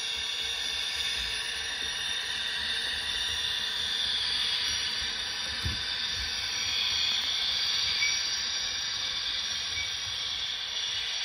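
Onboard sound of an HO scale GTEL 8500 hp "Big Blow" gas-turbine model locomotive: a steady turbine hiss from its small speaker, growing a little louder from about four seconds in as the train approaches.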